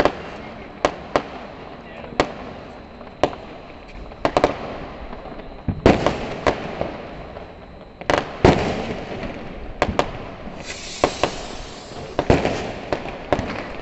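Diwali firecrackers going off in irregular succession: about fifteen sharp bangs, some close together in pairs. About two-thirds of the way through, a hissing spray lasts a little over a second.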